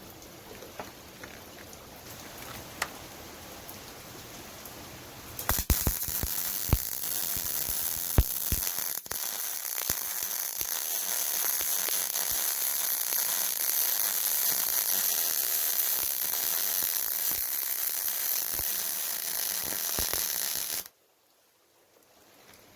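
MIG welding arc on thick steel plate from a Yeswelder MIG-Pro250 wire-feed welder. The weld strikes about five seconds in with a few pops, then runs as a steady crackling sizzle for about fifteen seconds and cuts off suddenly as the trigger is released.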